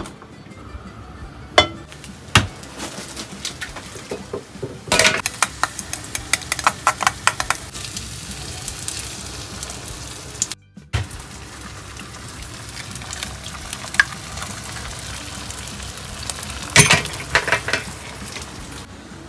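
Food sizzling steadily in a frying pan, with quick clinks of a knife beating eggs in a metal bowl. Near the end comes a cluster of clinks as the eggs are scraped from the bowl into the pan.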